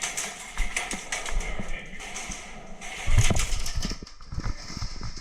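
Irregular knocks and clicks of movement and handling, with a louder low rumble and thumps a little past halfway.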